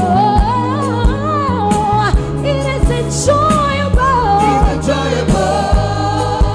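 Gospel song: a sung melody with wordless vocal runs over steady bass, keyboard chords and a regular drum beat.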